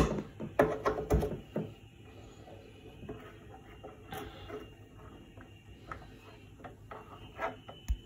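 Handling noise from a mixing desk: a cluster of sharp clicks and knocks in the first second and a half as an XLR microphone cable is plugged into another input channel, then faint ticks of knobs being turned, with a couple more knocks near the end.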